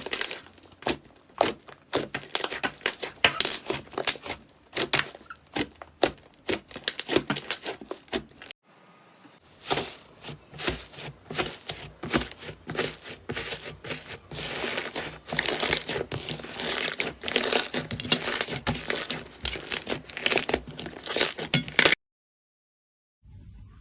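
Slime being squeezed and pressed close to the microphone, giving a dense, irregular run of sharp crackles and pops. The crackling stops briefly about a third of the way in and again shortly before the end.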